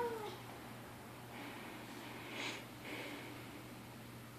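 The end of a cat's meow, then a quiet room with a few faint, short puffs of breath, the clearest about two and a half seconds in.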